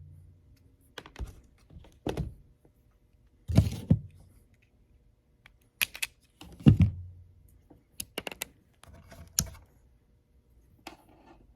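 Hand wire strippers working on wire ends: a series of irregular sharp clicks and thunks as the tool closes and pulls insulation off.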